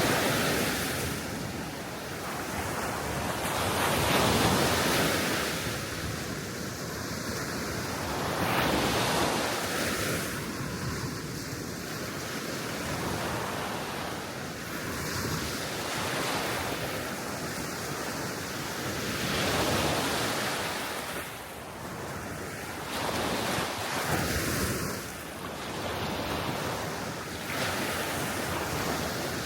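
Gentle sea waves washing onto the shore, swelling and falling about every four to five seconds, with wind blowing on the microphone.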